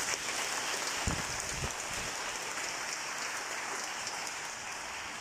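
Congregation applauding steadily, with two low thumps between one and two seconds in.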